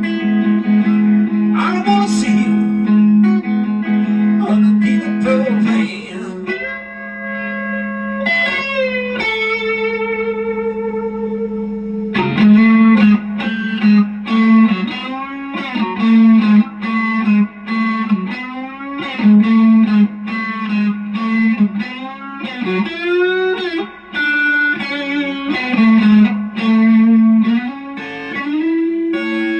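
Harley Benton Mad Cat Telecaster-style electric guitar playing a lead solo through effects. It holds long bent notes with vibrato in the middle, then fast runs of notes over a steady low note.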